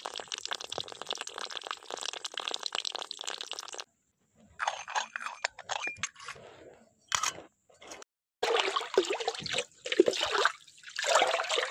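Water poured from a small steel pot into a miniature metal pot, a steady splashing trickle that stops abruptly about four seconds in. After that come scattered clicks and short bursts of handling noise as small metal parts are moved.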